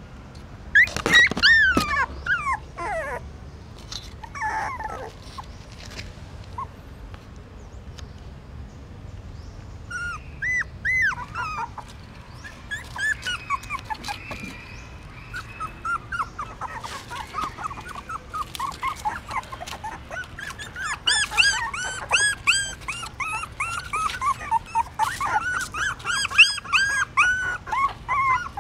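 Young puppies whimpering with high-pitched cries: a few loud falling cries at the start, then from about a third of the way in an almost constant run of short cries.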